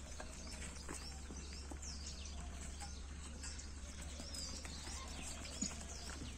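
Small birds chirping repeatedly in the background over a steady low rumble, with a few faint ticks.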